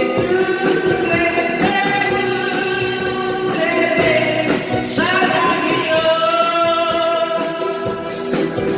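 Live band music: a singer holding long notes over keyboard and drums, with steady cymbal strokes.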